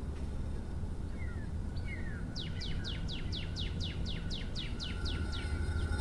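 A songbird singing a quick run of about a dozen down-slurred whistled notes, about four a second, over a steady low hum.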